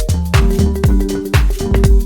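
Background electronic dance music with a steady beat: a kick drum about twice a second, hi-hats and held synth chords.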